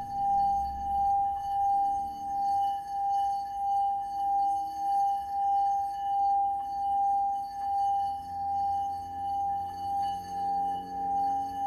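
Singing bowl ringing on one steady tone with faint overtones, its loudness swelling and fading in a regular wobble a little more than once a second. Soft low notes shift underneath it.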